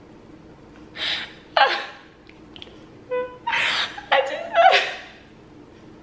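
A woman crying and whimpering, eyes stinging from cut onion: a sharp gasp about a second in, a short falling wail, then a run of louder sobbing cries in the second half.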